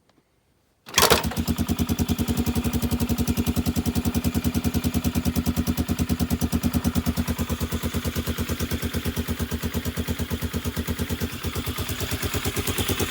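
ATV engine coming in abruptly about a second in and then running steadily with even firing pulses, having just been started by pulling a rope wrapped around its belt clutch instead of the broken starter and recoil.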